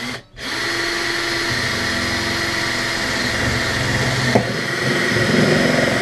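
Cordless drill running steadily as it bores a hole through the side wall of a fridge, after a short blip of the trigger at the start. There is a click about four and a half seconds in, after which the drill's sound wavers.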